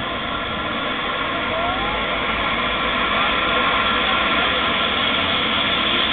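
Eurocopter EC135 trauma helicopter running on the ground with its rotor turning during start-up: a steady turbine whine over the rush of the rotor, growing slowly louder as it builds toward takeoff.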